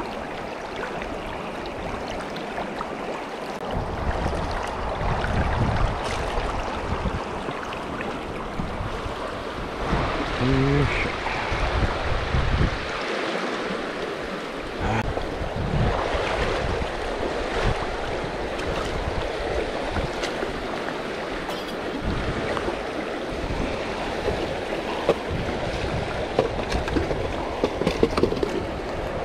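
River water rushing steadily, with irregular low rumbling swells in the noise.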